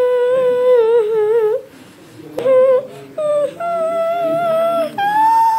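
A high voice humming or singing a tune in long held notes. There is one long wavering note, a brief break, then four or so more notes that step higher toward the end.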